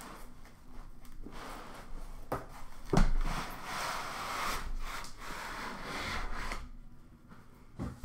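A cardboard shipping carton being unpacked: cardboard and foam packing inserts scrape and rub as a boxed set of cards is worked out of them. A sharp knock about three seconds in is the loudest sound.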